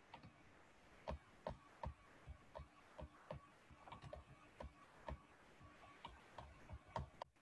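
Faint, irregular clicking, about two or three sharp clicks a second, starting about a second in.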